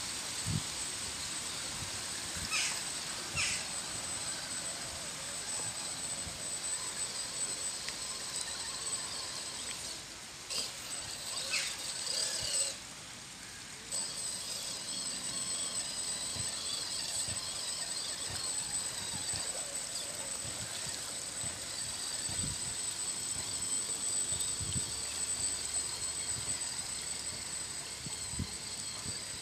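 Shallow stream running over gravel, with a thin steady high tone above the water noise and two sharp ticks about three seconds in.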